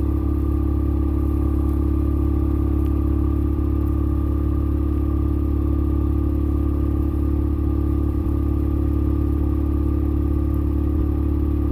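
Kubota engine running steadily at low speed, an even hum with no revving, while it tows old fence wire out slowly.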